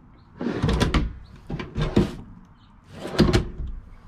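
Wooden kitchen cabinet drawers sliding open and shut on metal drawer slides, in three rounds of scraping each ending in a sharp knock as a drawer front bumps home.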